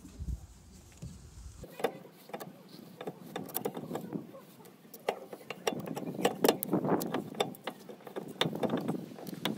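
A screw-type brake piston tool being wound by hand on a VW Golf VI brake caliper, pushing the piston back: a stream of uneven metallic clicks and scraping from the turning threaded rod. It starts about two seconds in and gets busier in the second half.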